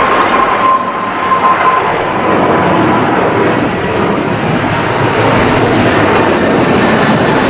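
Boeing 777 twin jet engines at takeoff thrust as the airliner lifts off, a loud steady roar. A thin whine fades out about two seconds in, and a fainter higher whine comes in near the end.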